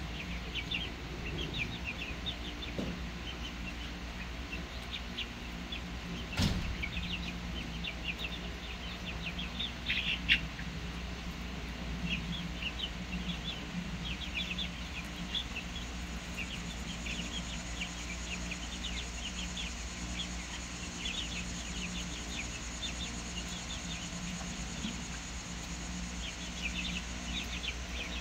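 Young chickens peeping and cheeping, many short high calls throughout, over a steady low hum. A sharp knock sounds about six seconds in and a smaller one about ten seconds in.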